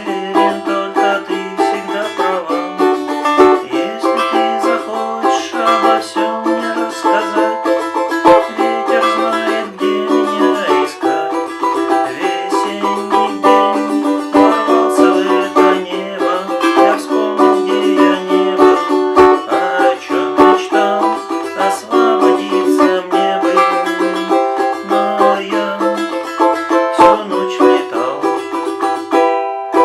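Three-string balalaika strummed rapidly, playing a chord progression as a steady run of quick strokes.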